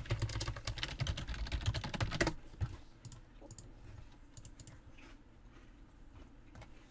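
Computer keyboard typing and clicking: a quick run of keystrokes for about two seconds, then a few scattered, fainter clicks.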